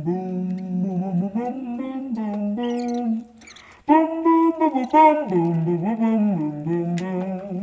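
A person humming a wordless tune, holding and sliding between notes, with a short break a little under halfway through.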